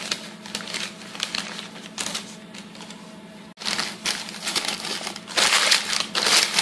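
Parchment paper lining a cake pan crinkling and rustling as it is handled and tucked around the dough, in many small crackles, louder in the last second or so.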